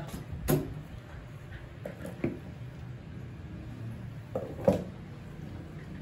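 A few short knocks and clunks of a microwave oven's metal casing being handled, the loudest a double knock near the end.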